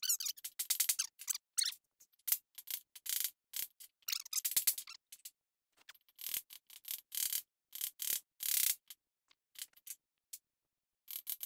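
Irregular light clicks, taps and scrapes of small metal brake parts being handled and fitted by hand at a disc brake caliper, in short uneven spurts with brief pauses.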